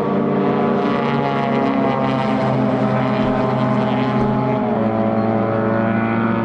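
Racing car engine running at high, steady revs. Its pitch drops in one step about three-quarters of the way through, as at a gear change, then holds steady again.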